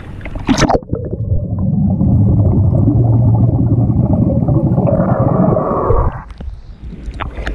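Air bubbling out of a swimmer's nose underwater, heard from under the water as a dense, low, muffled bubbling rumble for about five seconds that stops suddenly as he surfaces. It opens with a short sharp burst as he breathes in through the mouth and ducks under.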